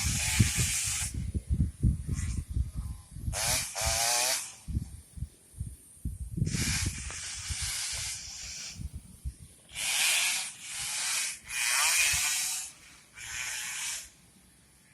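Racing motorcycles passing one after another at speed, each pass a second or so of hissing engine and exhaust noise, about six in all. Wind buffets the microphone underneath.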